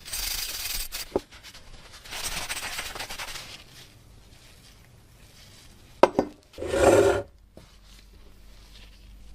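Handling of the old oil lamp's metal and glass parts: short rubbing and scraping passes, a click, a sharp clink about six seconds in, then a brief heavier scrape.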